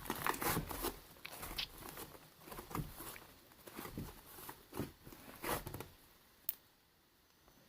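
Slime being squished and poked by hand, giving irregular sticky crackles and pops. It thins out after about six seconds, with a single click near the end.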